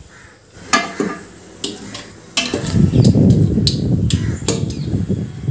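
A wooden spatula knocking and stirring in the pot of an electric pressure cooker on sauté, where oil and spices are heating. There are a few separate sharp taps first, and from about halfway a louder, continuous stirring and scraping.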